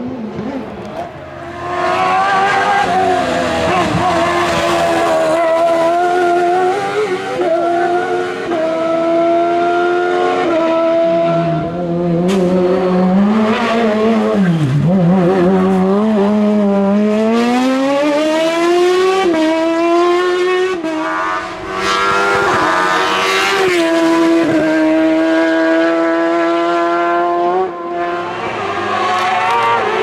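Hill-climb race car's engine at full throttle through corners. Its pitch climbs and drops back sharply at each gear change, dips under braking about halfway through, then rises in a long sweep as it accelerates hard again.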